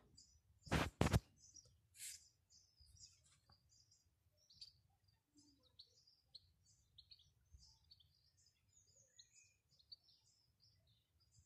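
Small birds chirping and twittering faintly throughout, in many short high notes. Two sharp clicks about a second in are the loudest sound, followed by a brief hiss.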